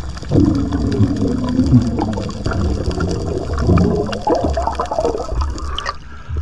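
Water moving and bubbling around an underwater camera as a spearfisher swims up toward the surface with a speared fish, in an irregular rushing wash that drops off sharply near the end.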